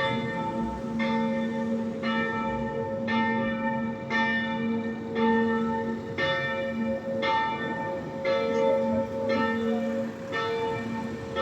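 Church bells of the Stockerau parish church ringing a full festive peal. Clangs come about once a second over a steady hum of several overlapping bell tones.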